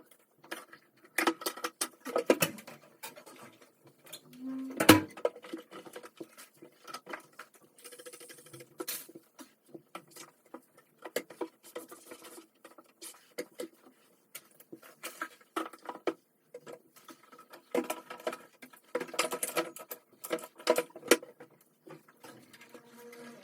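Many small taps, clicks and knocks of things being handled and set down, with one louder knock about five seconds in.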